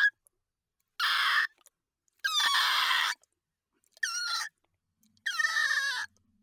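Monster creature sound effects: four short, high-pitched shrieking calls, some with wavering, falling pitch, each cut off into dead silence before the next.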